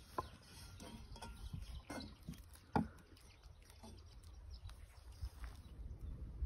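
Faint taps and clicks of hands pinching and pressing filled dough in a nonstick frying pan, the sharpest about halfway through, over a low steady rumble.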